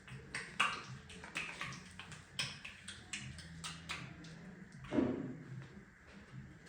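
Hands working on bare skin during a back massage: a run of irregular light taps and slaps, with one heavier thud about five seconds in, over a low steady hum.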